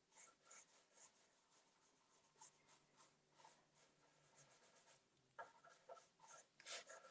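Faint, scratchy strokes of a small pointed French tip brush, dabbing and swirling gemstone mousse into the carved details of a WoodUbend trim. The strokes come in a quick, uneven series and grow a little louder near the end.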